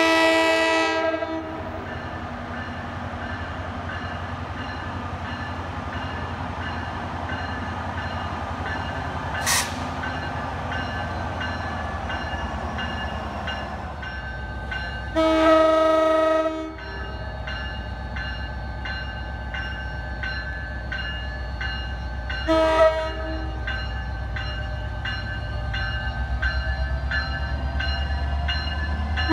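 New Jersey Transit PL42AC diesel locomotive sounding its horn in the grade-crossing pattern: a long blast at the start, another long blast about 15 seconds in and a short one about 22 seconds in, as the train approaches. The diesel engine rumble grows louder toward the end, with the crossing bell ringing in the background.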